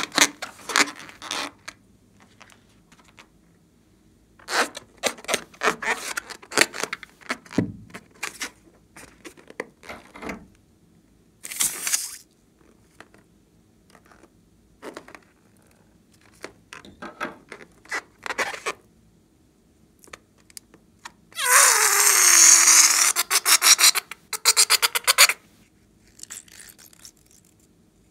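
Liquid-filled rubber balloon rubbed and squeezed in the hands, giving scattered short squeaks and scrapes. About three quarters of the way through, red liquid and air are forced out of the cut balloon in a loud rasping sputter lasting a few seconds, starting with a falling tone and breaking into rapid pulses.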